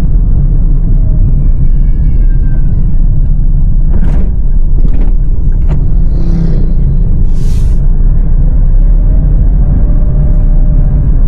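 Toyota Agya 1.2 manual car on the move: a loud, steady low rumble of engine and road noise. A faint falling whistle comes about two seconds in, a few sharp clicks follow around the middle, and two short hisses come just after.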